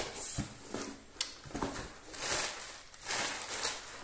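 Cardboard packaging being handled and opened: a few sharp clicks and knocks of the box flap, then spells of rustling and crinkling from the cardboard, the paper sheet and the plastic bags inside.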